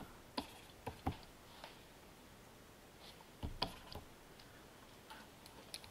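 A handful of light, scattered clicks and taps over quiet room tone, from stylus and key work at a digital drawing station.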